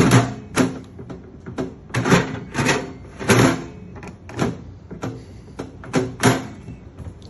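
Dreo ChefMaker air fryer's drawer being pushed and pulled, giving a series of irregular knocks and clatters, about one or two a second. The drawer is sticking, which the owner calls a defect.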